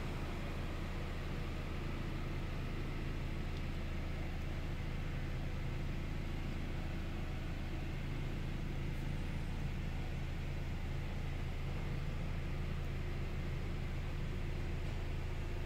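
2018 Chevrolet Equinox engine idling in Park, heard from inside the cabin as a steady low hum.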